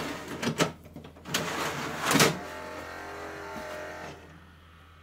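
Hitachi CED videodisc player being loaded: the plastic disc caddy slides through the front slot with clicks and a scraping rush, then the player's mechanism runs steadily for about two seconds and goes quiet near the end.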